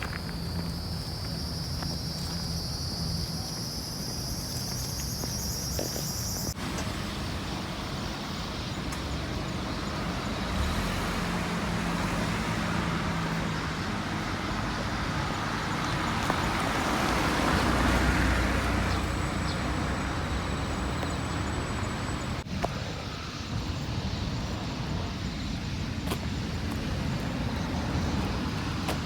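Road traffic: a vehicle approaches and passes, its engine and tyre noise swelling to loudest a little past the middle, then fading. A high, rising buzz runs over the first few seconds and stops abruptly.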